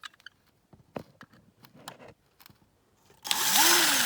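Light clicks and scrapes of handling, then about three seconds in a power drill whirs loudly for just over a second, its pitch rising and dipping under load as the bit drills out a rivet in the die-cast metal car body.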